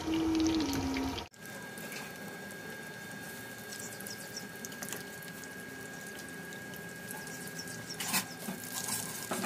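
Pakoras deep-frying in hot oil in a karahi: a steady sizzle full of small crackles and pops, with a few louder crackles near the end. A held musical tone is heard at the start and cuts off about a second in.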